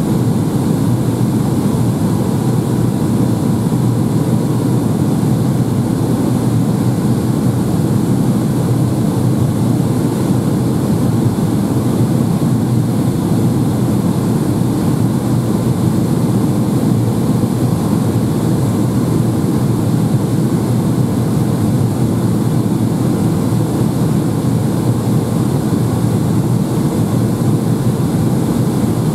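Steady cabin noise inside a Boeing 757-200 on descent: an even rumble of engines and airflow heard from a window seat, with a faint steady high tone running through it.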